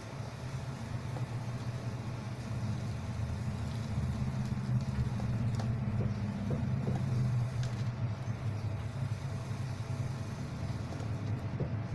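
A steady low rumble, a little louder around the middle, with a few faint clicks and rustles as plastic sheet protectors are flipped over on a ring binder.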